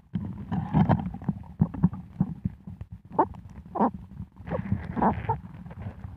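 Underwater noise heard through a submerged camera: irregular muffled knocks and short pulses, a few each second, over a steady low rumble.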